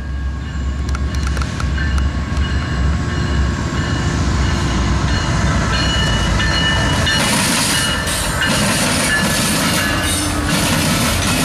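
Union Pacific freight train led by a GE ES44AC and two EMD SD70M diesel locomotives approaching and passing close by: a deep steady diesel rumble, then from about seven seconds in the clatter of the locomotives' wheels over the rail joints and switches.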